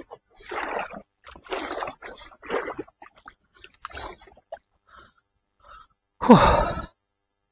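Kayak paddle strokes dipping and splashing through canal water, a swish about every half second that thins out after four seconds. About six seconds in comes a louder short sound whose pitch falls sharply.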